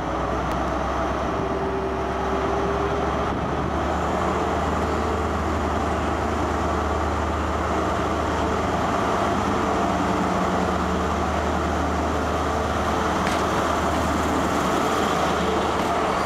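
Class 43 diesel power car of a High Speed Train running steadily with a low engine hum as the train moves slowly along the platform past the listener.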